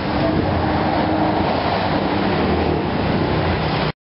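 Steady roadside traffic noise, with motorcycle engines passing close by and a low rumble underneath; it cuts off suddenly near the end.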